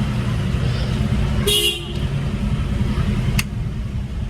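Steady low rumble of a car on the move, with a short horn toot about one and a half seconds in and a single sharp click a little later.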